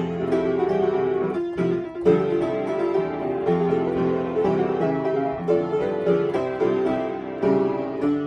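Piano playing a flowing passage of melody over chords, with a brief break in the notes about two seconds in.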